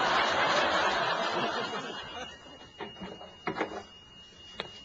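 Studio audience laughing, starting suddenly and fading away over about two seconds, followed by a few scattered chuckles.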